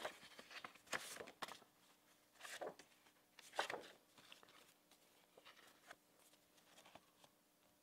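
Faint rustling and scraping of paper as a colour-sample card is handled, a few short rustles within the first four seconds, then only room tone.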